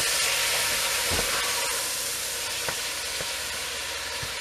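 Ground beef sizzling as it browns in a stainless steel stockpot, stirred with a wooden spoon that knocks against the pot a few times.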